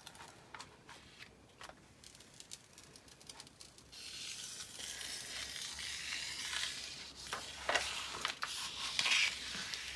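Plastic cover film being peeled off the sticky adhesive of a diamond painting canvas: a steady crackling hiss that starts about four seconds in, with a few soft clicks of the sheet being handled before it.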